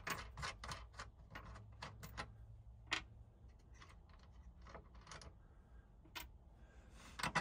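Faint, scattered small metal clicks and taps as a nut, washer and lock washer are handled and fitted onto a busbar terminal stud, with a sharper click about three seconds in and another near the end.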